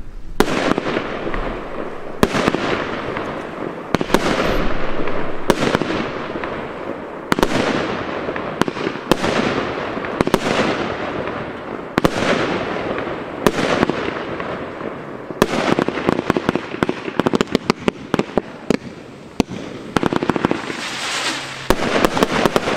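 A Weco Sonic Boom 25-shot firework battery firing aerial shots one after another, roughly one every one and a half seconds. Each sharp bang is followed by a hiss that dies away. Dense crackling comes about fifteen seconds in and again near the end.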